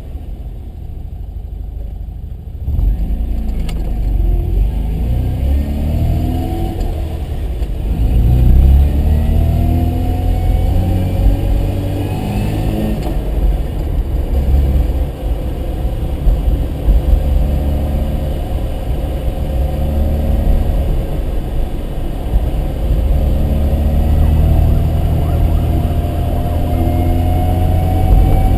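Mazda RX-7's rotary engine running under way, its revs rising and dropping several times over a heavy low road rumble. It gets louder about three seconds in and climbs in a long rise near the end.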